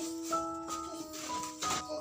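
Background music: a light melody of held notes.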